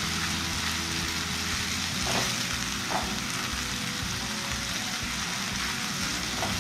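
Onion, garlic and ginger paste sizzling steadily in hot oil in a nonstick kadai as it is stirred with a silicone spatula, with two brief louder strokes about two and three seconds in. The paste is being fried down until its raw smell goes.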